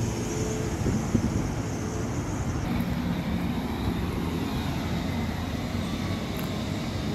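A car driving past slowly, its low engine hum and tyre noise over steady street traffic noise; the engine hum comes in about three seconds in.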